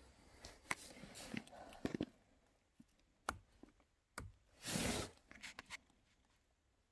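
Hands working the illuminated scope on a crossbow: a few separate sharp clicks and rustles, with a longer, louder rustle about five seconds in.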